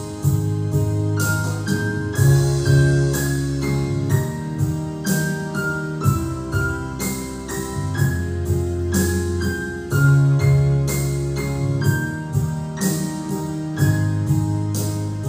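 Electronic keyboard playing a melody of single notes over held bass and chords, with a steady percussion beat.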